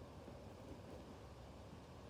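Near silence: faint room tone with a low hum and hiss.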